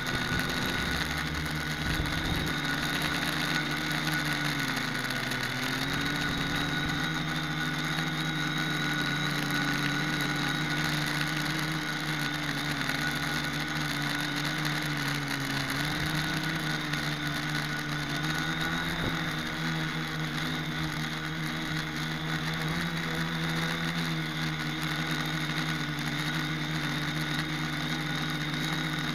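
Brushless motors and propellers of a Deadcat-frame quadcopter whirring steadily in flight. The pitch dips and recovers a few times with throttle, and a thin steady high whine runs above it.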